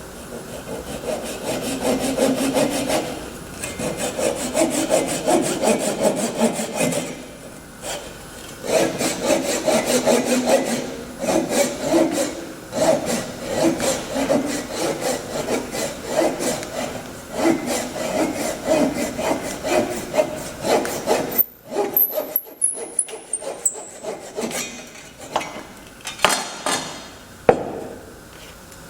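A hand saw cutting wood in quick back-and-forth strokes, in runs broken by short pauses. The sawing stops about two-thirds of the way through, followed by scattered knocks and clicks.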